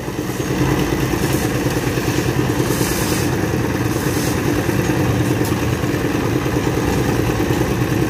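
Engine of a concrete mixer running steadily at a construction site, with a few short hissing, scraping noises over it.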